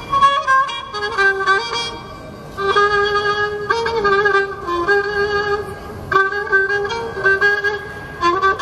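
Azerbaijani kamancha, a bowed spike fiddle, playing a solo melody one note at a time. The sound drops quieter for a moment about two seconds in, then comes back fuller.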